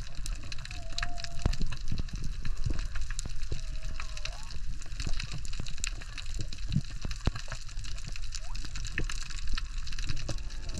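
Water sloshing and gurgling around the microphone, with a steady crackle of many small clicks over a low rumble.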